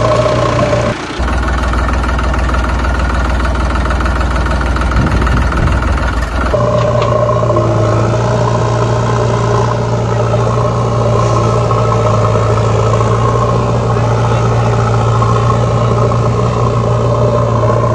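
Engine running steadily, a vehicle engine sound effect laid over the toy footage. The sound switches abruptly about a second in and again around six and a half seconds in.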